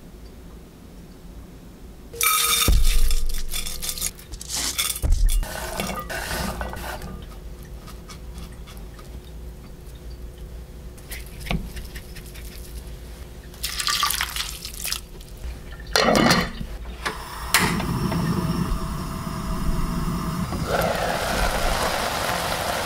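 Water poured into a pot of rice and corn kernels, with a few knocks and clinks of the pot and its lid. From about two-thirds of the way through, a steady hiss as the pot heats on the stove, growing louder near the end.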